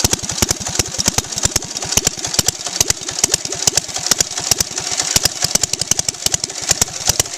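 Home-built air-cooled V-twin motorcycle engine idling, a quick, slightly uneven run of sharp exhaust pops, about seven a second, from its short open exhaust pipes.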